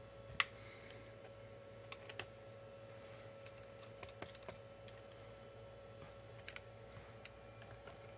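Scattered small clicks and taps of a screwdriver and loose screws against the plastic case of a laptop being taken apart, the sharpest about half a second in, over a faint steady hum.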